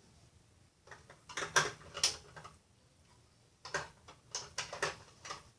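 Light clicks and knocks of plastic toy kitchen pieces being handled, likely toy toast going into a toy toaster. The sounds come in two short clusters, one about a second in and another in the second half.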